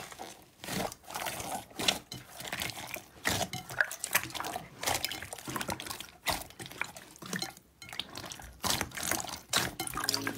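Wet squelching from hands squeezing and kneading a large mass of glossy clear slime, with many irregular sticky pops and clicks several times a second.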